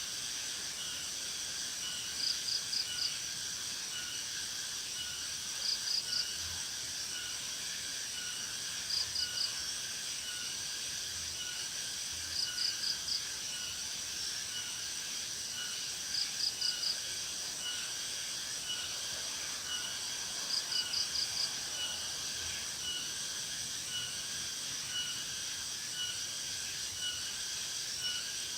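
Steady chorus of insects, with one chirping in short groups of four or five quick pulses about every three and a half seconds over a continuous high drone.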